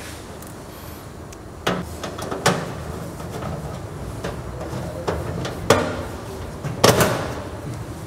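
Screwdriver taking the screws out of a microwave oven's metal cover: scattered sharp clicks and knocks of metal on metal, the loudest a couple of seconds in and near the end.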